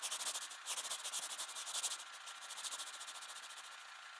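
Sound effect of a seismograph stylus scratching across paper as it draws a trace: a fast, fine, dry scratching, loudest in the first two seconds and then easing.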